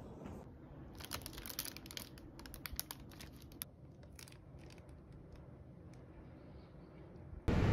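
Thin plastic bakery bag crinkling as it is handled, a rapid run of crackles for about three seconds, then a few fainter crinkles.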